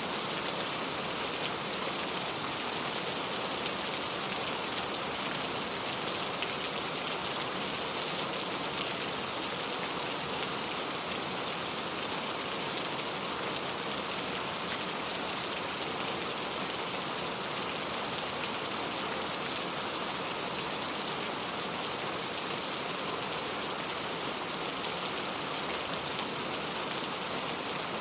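Steady rain falling, an even hiss of many drops with fine patter, unchanging throughout.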